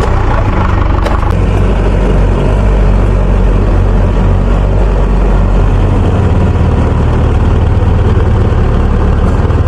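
Rice combine harvester's diesel engine running steadily at working speed with a deep, constant hum.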